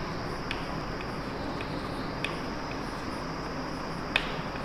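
Chalk writing on a chalkboard: a few short, sharp taps and scrapes of the chalk against the board, the loudest about four seconds in, over a steady hiss.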